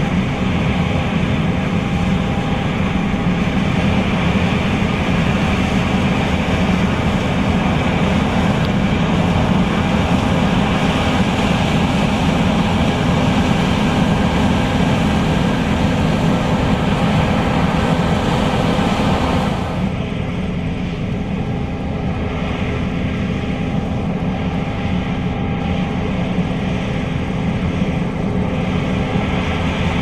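John Deere S660 combine harvesting soybeans: a steady drone of the engine and the threshing machinery running under load. About two-thirds through, the higher part of the noise drops off and the machine sounds a little quieter.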